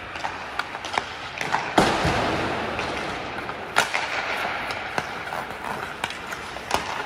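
Ice hockey sticks striking pucks in shooting drills: sharp clacks that echo round the rink, the loudest shot about two seconds in and another near four seconds, with lighter stick-and-puck taps in between.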